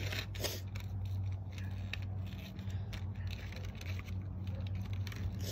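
A steady low hum with a few faint clicks and rustles, like small objects or paper being handled.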